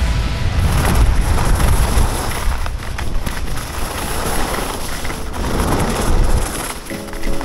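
Wind rushing over the camera's microphone during a downhill ski run, with the steady hiss and scrape of skis on packed, tracked snow.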